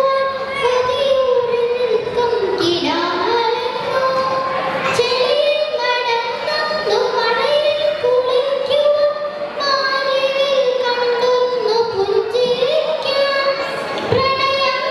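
A young girl singing a Malayalam poem (kavitha) into a handheld microphone, in long held notes that bend up and down in pitch, with short breaks between phrases.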